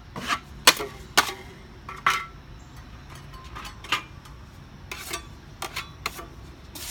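Steel drywall knife clacking and scraping against a metal mud pan, about eight sharp strikes and short scrapes at irregular spacing, as joint compound is loaded and scraped off the blade.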